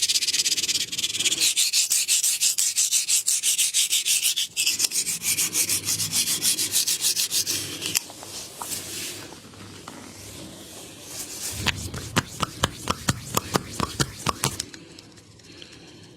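Fast, rhythmic rubbing strokes, several a second, for about the first half, then softer rubbing, then a quick run of about a dozen sharp clicks with low thuds near the end.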